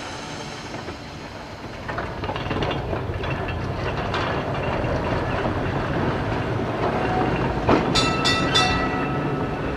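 Vintage Fremantle Municipal Tramways electric tram no. 29 running slowly along its rails, a low rumble that grows louder as it approaches, with wheel clicks over the track. About eight seconds in, a few quick sharp metallic strokes ring on.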